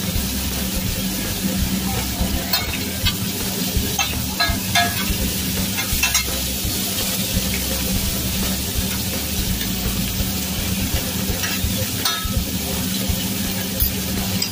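Shrimp, scallops, vegetables and steak sizzling on a hibachi steel flat-top griddle, a steady frying hiss with a few light clicks scattered through it. A steady low hum runs underneath.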